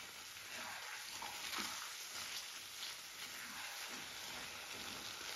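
Boiled tapioca and crushed coconut cooking in a metal kadai, with a soft steady sizzling hiss as it is stirred and a few faint scrapes of the spoon against the pan.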